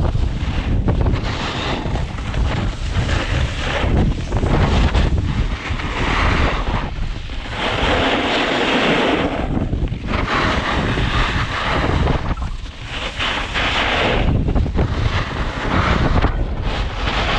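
Strong wind buffeting the microphone: a heavy, unsteady rumble with gusting surges of rushing noise every second or two.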